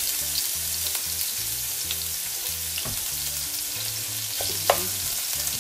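Ground meat sizzling steadily in hot oil in a nonstick frying pan. A wooden spatula scrapes and taps against the pan a few times as the meat is broken up, with one louder tap near the end.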